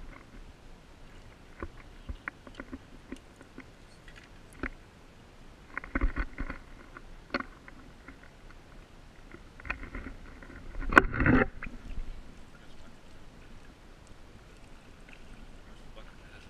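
Shallow stream water sloshing and splashing as dip nets and the camera are worked through it, with scattered small clicks and knocks; two louder bursts of splashing come about 6 s and 11 s in, the second the loudest.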